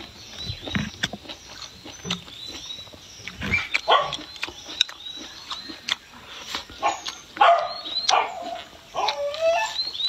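An animal calling in short yelps and whines, more often and louder in the second half, over close-up chewing and clicks while someone eats.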